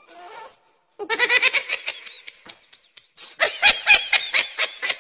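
High-pitched laughter in quick runs of short bursts, several a second. It begins about a second in, breaks off briefly past the middle, then returns louder.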